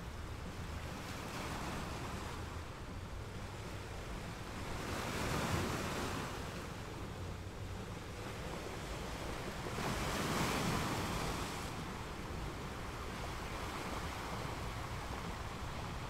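Rushing water noise over a steady low rumble, swelling twice into louder rushes about five seconds apart.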